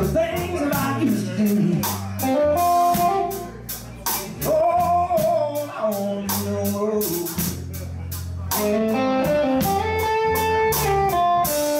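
Live blues band playing: electric guitar, electric bass and drum kit keeping a steady beat, with a man singing in the first half and a guitar fill near the end.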